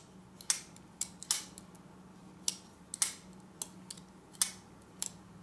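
Kizer Begleiter XL plunge-lock folding knife on Skiff ceramic pivot bearings being flipped open and closed. The blade snaps out and locks with sharp clicks, about eight of them, irregularly spaced.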